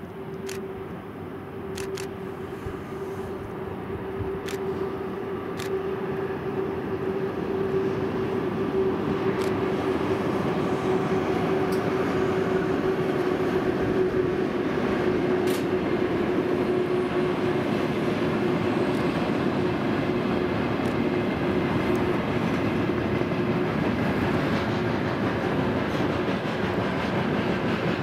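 Freight train behind a twin-section electric locomotive passing below, heard from high above: its rumble grows louder over the first several seconds, then holds as a steady run of wagons. A steady hum sits under it and fades about halfway through, and a few sharp clicks come early.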